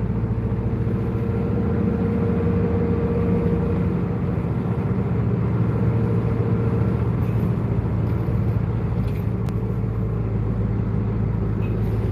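Route bus running along the road, heard inside the passenger cabin: a steady engine drone and low hum with road noise.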